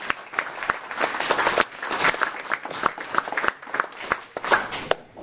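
Audience applauding: a dense patter of many hands clapping that dies away near the end.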